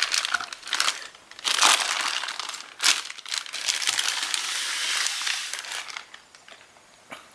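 Plastic packaging bags crinkling and rustling in irregular bursts as wrapped exhaust pipe sections are handled, dying down near the end.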